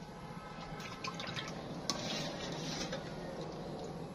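Water splashing and dripping in a plastic basin as a raw fish is rubbed and rinsed by hand, with small drips and splashes throughout and a louder sloshing stretch about two seconds in.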